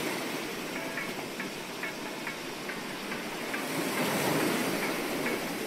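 Surf washing on the shore, a steady rush that swells about four seconds in, with short high chirps repeating about every half second.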